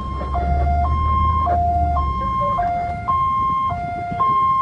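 Ambulance siren in a steady two-tone hi-lo pattern, switching between a higher and a lower note about every half second. A low rumble runs under it for the first two seconds.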